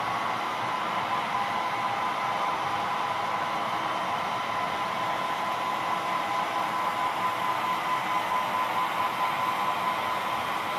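HO-scale model freight trains rolling along the layout's track: a steady whirring rumble of small metal wheels and motors, a little louder and more uneven near the end.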